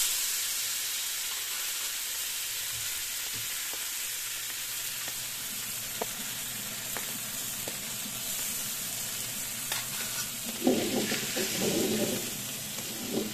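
Floured salmon steak frying in hot oil in a wok: a steady sizzle, with a few sharp ticks and a louder stretch near the end.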